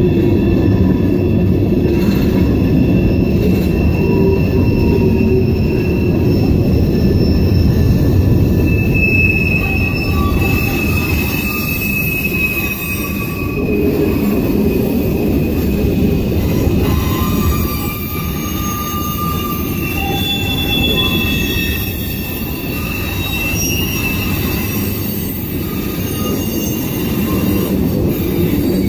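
Freight cars of a Norfolk Southern manifest train rolling past: a loud, steady rumble of wheels on rail, with high-pitched wheel squeals coming and going as the cars take the diverging route off the B Line through the junction.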